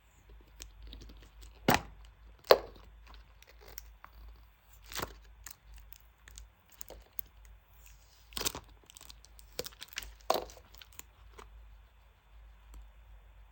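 Stiff packaging crackling as it is handled and torn open: irregular small ticks and crinkles, with a few loud, sharp cracks, the loudest two about two and two and a half seconds in.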